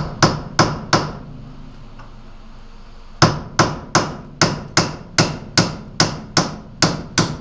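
Hammer blows on a seized brake drum to knock it loose, each with a metallic ring. Four quick strikes come first, then after a short pause a steady run of about two and a half blows a second.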